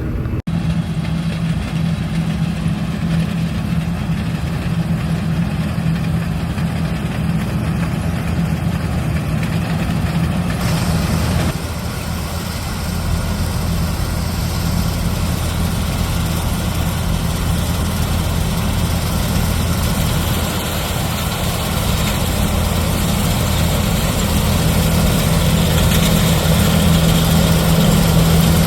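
Large farm diesel engine running steadily with a low hum. About ten seconds in, a hiss joins, and the sound slowly grows louder toward the end.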